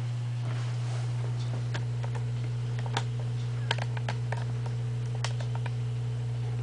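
Steady low electrical hum from a Gradiente Model 80 amplifier with its phono input selected, with a few faint scattered clicks over it.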